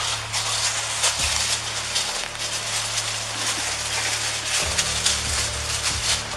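Clothing rustling and brushing against a police body camera's microphone as the wearer moves, a crackly scraping noise with frequent small knocks, over a steady low hum.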